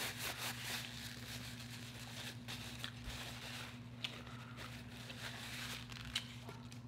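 Faint rustling of a paper napkin being used to wipe hands and mouth, with a few small clicks, over a steady low hum.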